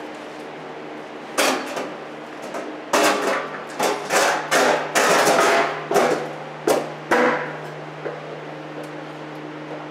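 Metal knocks and clanks from a car's front strut being worked up into its mount while the top bolt is caught by hand. A cluster of loud knocks and rattles lasts about six seconds, over a steady low hum.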